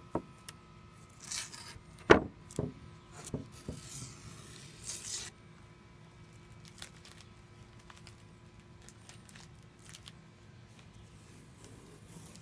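Blue painter's tape being peeled off a wooden cabinet-door frame, two short rasping tears in the first five seconds, with a few knocks against the wood, the loudest about two seconds in. The second half is much quieter, with only faint ticks.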